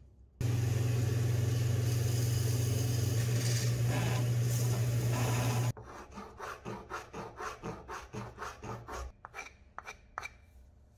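A bench belt sander runs loudly with a steady low hum for about five seconds, then cuts off suddenly. A flat file follows, scraping back and forth across a wooden handle in quick, regular strokes, about four a second.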